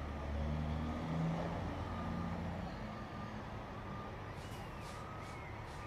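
Semi truck's diesel engine running at low speed as the truck manoeuvres, with a reversing alarm beeping about once a second that fades out about halfway through.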